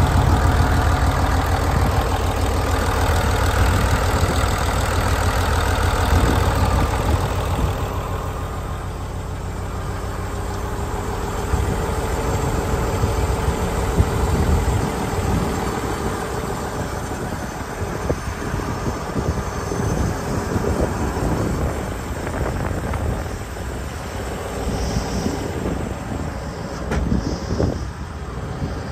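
Komatsu PC600LC-8 excavator's six-cylinder turbodiesel engine idling steadily. It is heard close up at first, then quieter and farther off from about eight seconds in.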